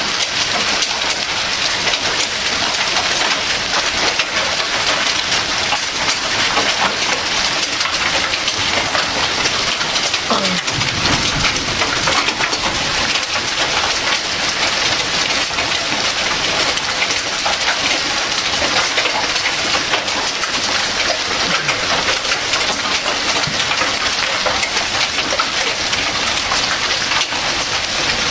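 Heavy downpour of rain and hail hitting lawns, pavement and the street: a dense, steady hiss speckled with small hits. About ten seconds in, a brief low rumble rises under it.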